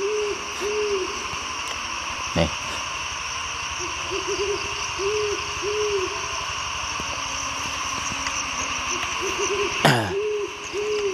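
An owl hooting in repeated phrases, each a quick run of short notes followed by two longer hoots. A steady chirring of night insects runs underneath, and a sharp loud knock comes near the end.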